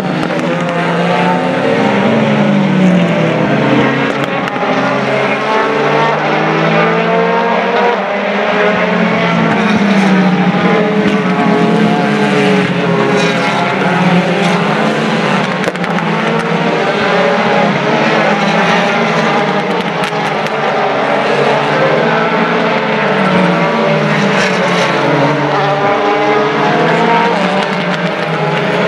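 DTM race cars' V8 engines lapping the circuit, several cars heard at once in a continuous loud drone, their pitch rising and falling as they accelerate, shift gears and pass.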